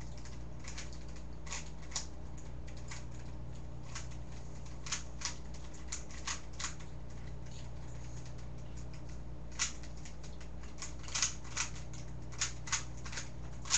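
Rubik's cube being turned fast by hand, its plastic layers clicking in quick, irregular snaps that come thicker near the end, over a steady low hum.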